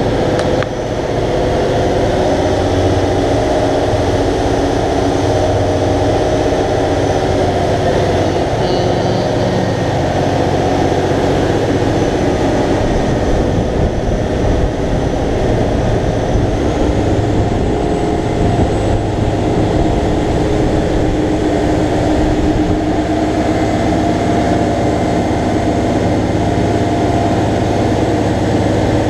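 Motor boat's engine running steadily at cruising speed, with the rush of the churning wake behind the stern.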